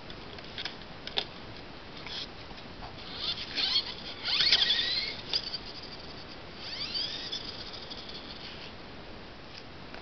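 Small electric motor and gearbox of a 1/18-scale four-wheel-drive RC truck whining in two spurts as it drives, the pitch rising and falling with speed. Before that, a few light clicks in the first two seconds as the truck is set back on its wheels.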